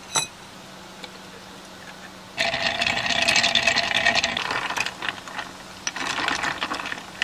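A rapid rattling clatter with a faint ringing tone, in two spells: one of about two seconds starting a couple of seconds in, and a shorter one near the end, after a single click at the start.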